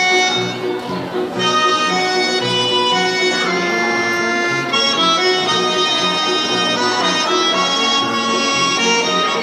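A garmon, the Azerbaijani button accordion, playing a lively yalli folk dance tune, with many sustained reed notes over a steady pulsing bass beat.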